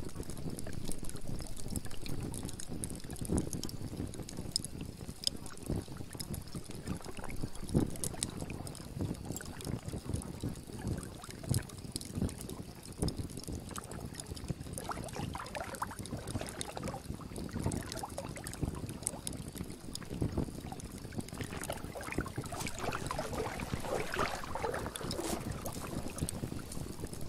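Steady noise of moving water with a low rumble and many irregular small clicks.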